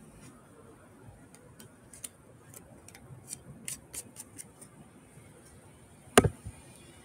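Hands handling the device close to the microphone: a run of light clicks and taps over a few seconds, then one louder thump near the end.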